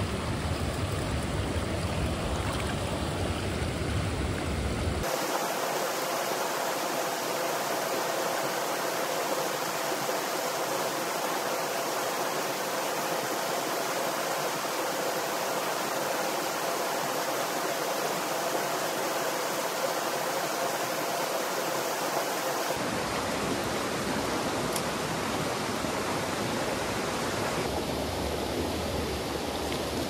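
Mountain stream water rushing over rocks, a steady noise. Its tone changes abruptly twice, about five seconds in and again after twenty seconds, losing and then regaining its low rumble.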